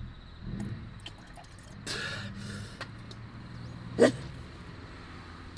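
A man sneezes once, loudly and suddenly, about four seconds in. Before it, water trickles from a bottle into a metal cup.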